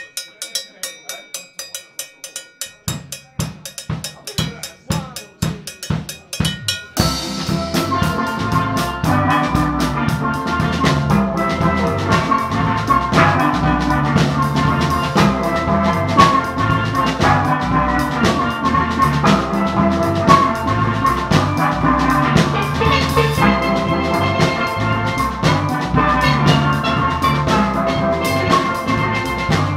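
A steel drum band starts a song live. A drum kit plays a tapping beat alone, and a kick drum joins a few seconds in. About seven seconds in, the steel pans, bass and drums come in together and play on at full volume.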